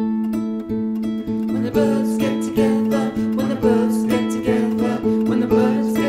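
Kora, the West African gourd-bodied harp-lute, plucked in a repeating pattern of bright notes over a steady low note. About a second and a half in, a rhythmic swishing joins the plucking.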